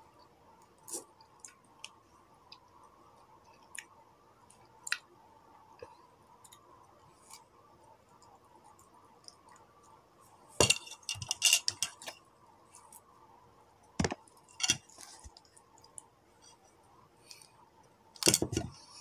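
Eating sounds: soft clicks and mouth noises of biting into and chewing a banana, with a run of louder crackling handling noises about ten to twelve seconds in and sharp knocks about fourteen seconds in and near the end.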